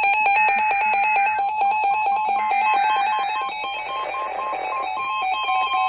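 Emergency Alert System warning tones from a weather radio and a TV sounding together. There are two roughly one-second bursts of the screeching SAME digital header over steady alert tones, and from about five seconds in the steady alert tone alone.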